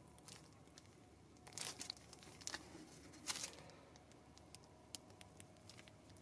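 A brake pad being worked out of a car's brake caliper by hand, with faint rustling and light clicks of metal on metal and the crinkle of a plastic glove. Three short, louder scrapes come between about one and a half and three and a half seconds in.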